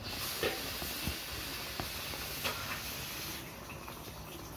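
Pinakbet sauce sizzling and simmering in a wok on a gas burner: a steady hiss with a few light clicks, easing off about three and a half seconds in.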